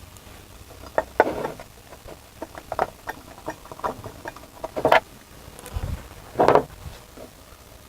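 Irregular small clicks, scrapes and knocks of metal parts being handled: bolts being threaded in by hand and the legs knocking against the cast iron burner ring during assembly. The two loudest knocks come about five seconds and six and a half seconds in.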